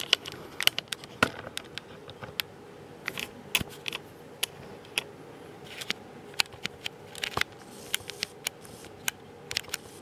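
Handling noise from a camera being set in place and angled down: irregular sharp clicks and light knocks, a couple a second, over a quiet room background.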